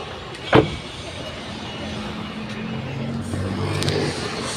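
Maruti WagonR car engine running, a little louder in the second half, with a sharp click about half a second in.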